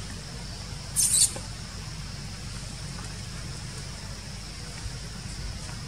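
Infant macaque giving one brief, high-pitched squeak about a second in, over a steady low hum and a faint steady high drone.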